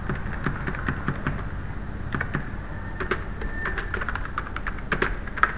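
Typing on a computer keyboard: an uneven run of quick key clicks as a line of text is entered, with one louder key strike near the end.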